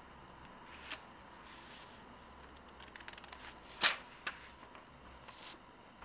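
Pages of a book being turned by hand: soft paper rustling, with a short sharp flick of a page about four seconds in and a smaller one just after.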